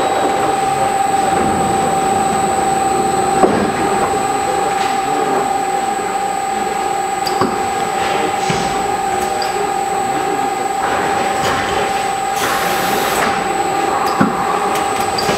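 FARBAL FM5D automatic film wrapping machine running: a steady mechanical hum with a held tone from the conveyor and wrapping gantry, a few single knocks, and a short hiss about twelve seconds in.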